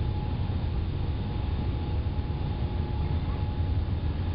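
Airbus A380 heard from inside the passenger cabin as it rolls down the runway for takeoff: a steady deep rumble of engines and wheels, with a faint constant whine.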